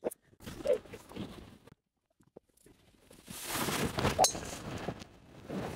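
Golf driver striking a ball off the tee: one sharp click about four seconds in, amid a rushing hiss, after some quiet shuffling on the tee. The ball is caught slightly off, very nearly a mishit.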